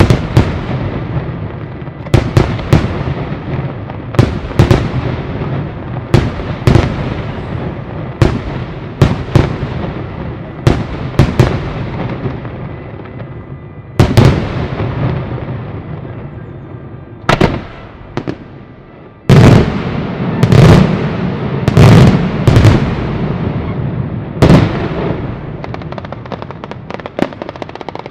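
Sanseverese-style daytime fireworks battery: sharp bangs going off every second or two, each trailing off in an echo, with continuous crackling in between. The loudest, deepest bangs come in a quick cluster about twenty seconds in, and near the end a rapid run of small crackles takes over.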